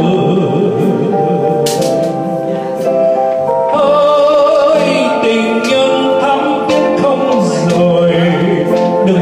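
A man singing through a microphone over electronic keyboard accompaniment, holding long notes with vibrato.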